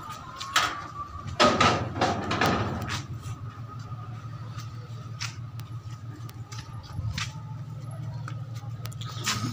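Branches of a jamun tree being cut and handled during pruning: several short rustles and cuts, the loudest and longest about one and a half to two and a half seconds in, over a steady low hum.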